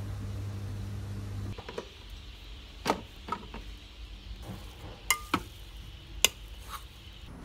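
A Samsung front-loading washing machine hums steadily as its drum turns. After about a second and a half this gives way to a rice paddle scooping cooked rice in a rice cooker's inner pot, with several sharp clicks and knocks of the paddle against the pot.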